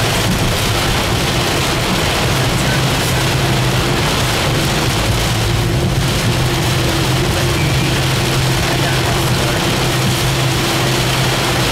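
Heavy rain hitting the car's roof and windshield, heard from inside the moving car as a steady hiss, over a steady low hum of engine and tyres.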